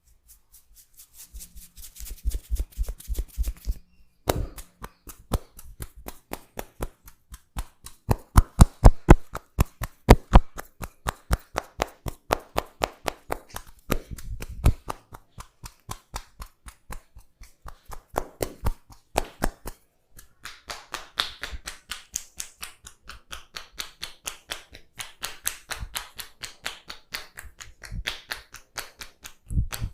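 Hands tapping and slapping rhythmically in a percussive head massage: a rapid run of sharp claps, several a second, loudest about eight to ten seconds in, with short pauses between bursts.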